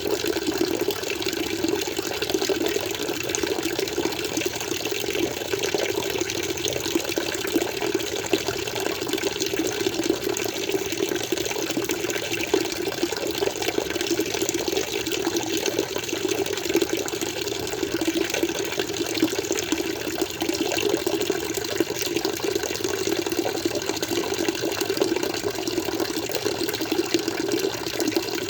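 Water flowing and splashing steadily, an even continuous rush with no breaks.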